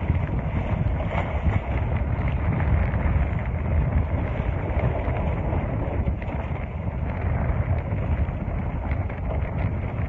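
Strong wind buffeting the microphone: a steady, dense low rumble over the sound of choppy water.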